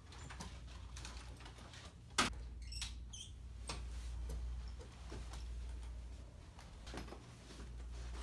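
Hotel room door shutting with one sharp click about two seconds in, followed by faint knocks and rattles of a rolling suitcase being pulled and handled, over a steady low hum.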